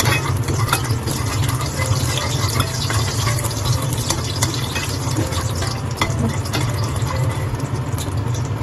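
Hot cooking oil sizzling and crackling in a wok as a metal ladle stirs and scoops through it, over a steady low hum.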